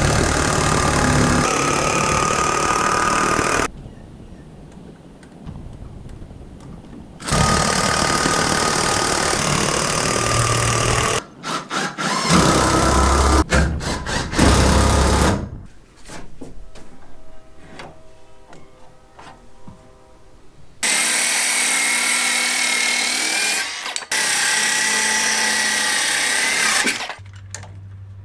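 Power tool running in about five bursts of a few seconds each, with quieter gaps between; in the last two bursts a whine wavers in pitch.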